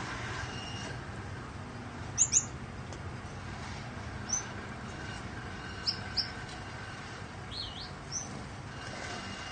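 Gouldian finches giving short, sharp chirps, about seven scattered calls with the loudest pair about two seconds in and a wavering one near the end, over the steady whir of an electric fan.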